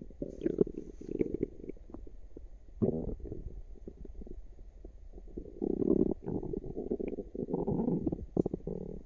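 Human stomach and intestines gurgling and rumbling in irregular bursts: an active tummy. The gurgles grow busier and louder a little past halfway.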